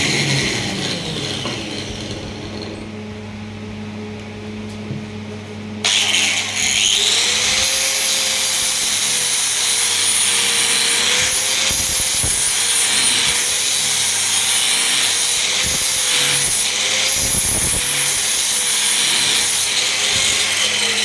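An electric power tool working wood on a cricket bat. It winds down at the start, then about six seconds in it starts up loud and runs steadily with a hissing, abrasive sound, its motor pitch wavering slightly under load.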